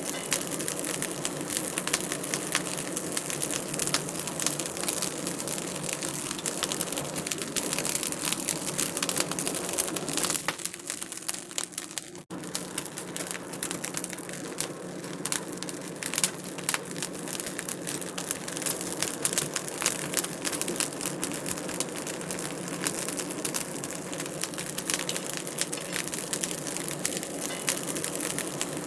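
Wood fire in a fireplace crackling, with a dense, irregular stream of small pops and snaps over a soft hiss. The crackle thins out and cuts off for an instant about twelve seconds in, then carries on as before.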